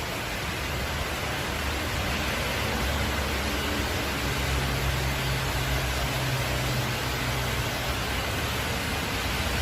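Steady rushing hiss of heavy storm rain and water, with a low engine hum underneath that strengthens about four seconds in.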